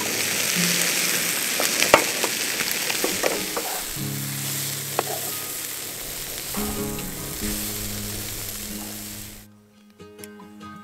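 Diced potato hash frying in a pan, sizzling steadily, with a few clicks and scrapes as it is stirred. About four seconds in, background music with long low notes comes in, and the sizzle fades out near the end, leaving only the music.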